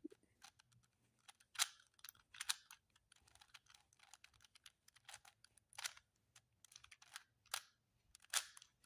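Plastic 3×3 Rubik's cube being turned by hand through middle-slice and top-layer moves: faint, irregular clicks and clacks of the layers, with a handful of louder clacks spread through.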